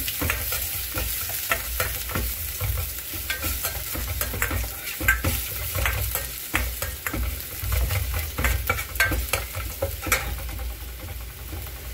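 Chopped ginger and garlic sizzling in hot oil in a stainless-steel kadai while a steel spoon stirs them, scraping and clinking against the pan. Sharp clicks are scattered throughout, the loudest about five and ten seconds in.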